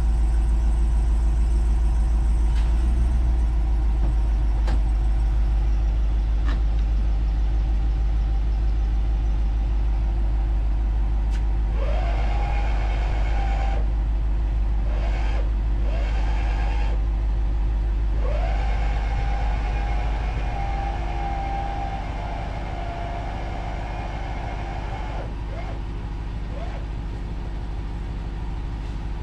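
RAM 5500 truck engine idling steadily, while the HOST Mammoth truck camper's electric jacks whine in bursts as they raise the camper. The first burst comes about twelve seconds in, two brief ones follow, then a longer run of several seconds, each rising in pitch as it starts.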